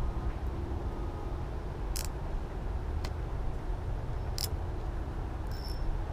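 Low, steady rumble of wind on the camera microphone, with a few short sharp clicks about two, three and four and a half seconds in.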